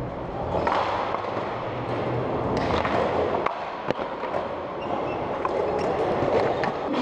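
Longboard wheels rolling on a smooth concrete floor in a large hall, a steady rumble broken by a few sharp board clacks, the loudest a little before four seconds in.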